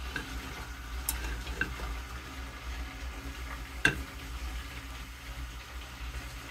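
Water left in the bottom of a hot pot on the stove sizzling as it heats and dries off, over a steady low hum. A few light ticks, and one sharp click about four seconds in.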